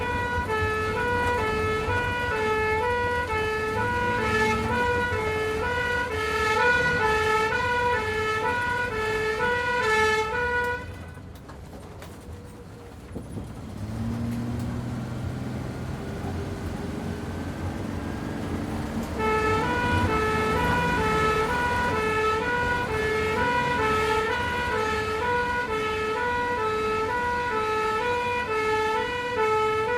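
Ambulance two-tone siren switching quickly back and forth between a higher and a lower pitch, over the vehicle's engine running. About eleven seconds in the siren cuts out, leaving only the quieter engine. The siren starts again about nineteen seconds in.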